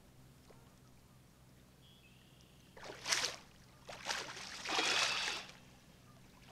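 Water splashing in three bursts over the second half, the last the longest: a hooked channel catfish thrashing at the surface beside a kayak.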